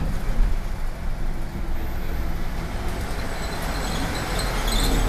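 Steady engine and road rumble heard inside a moving trolley-style transit bus, with a faint high tone near the end.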